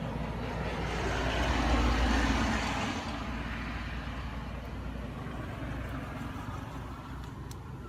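A motor vehicle passing close by, swelling to its loudest about two seconds in and fading by three seconds, over a steady low outdoor rumble.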